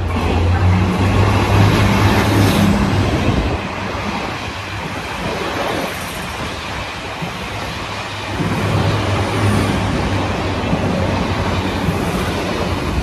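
DR2800 diesel multiple unit passing along the platform without stopping: a loud diesel engine drone in the first few seconds, steady wheel-on-rail rumble as the cars go by, and the engine drone again from about eight seconds in.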